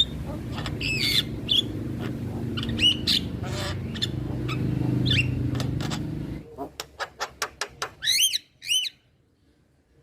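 Male Javan myna calling: short harsh notes and gliding whistles over a steady low rumble that stops about six seconds in. Then comes a quick run of sharp clicks and two curved whistled notes.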